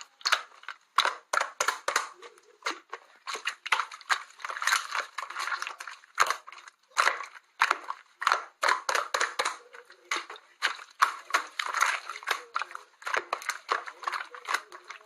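Slime being squeezed and pressed by hand, giving a fast, irregular run of sharp clicks and pops.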